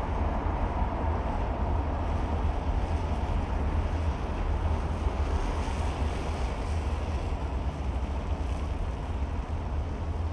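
Steady road noise of a car driving: tyre rumble with a deep low drone, even throughout.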